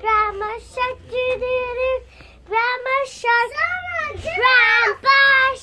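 A child singing in a high voice, holding notes in short phrases with brief breaks, getting louder with swoops in pitch near the end.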